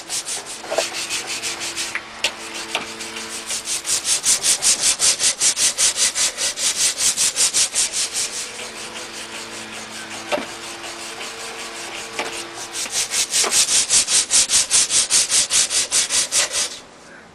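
Rust being scrubbed by hand off a steel shaft of a rotary steam engine prototype: fast, even back-and-forth rubbing strokes, about five a second. The strokes ease off in the middle and stop just before the end.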